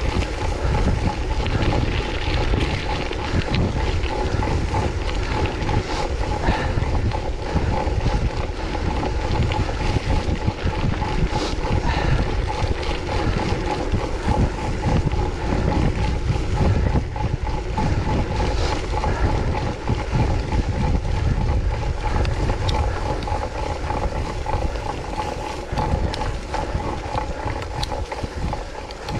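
Wind buffeting the microphone of a camera on a bicycle ridden at race speed, over steady tyre and drivetrain noise, with a thin steady whine underneath.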